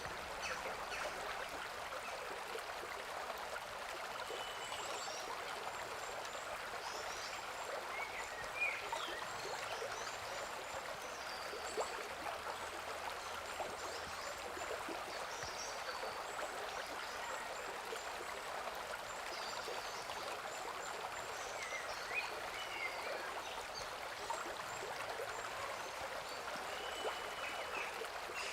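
Steady babble of a flowing stream, with scattered short high chirps over it.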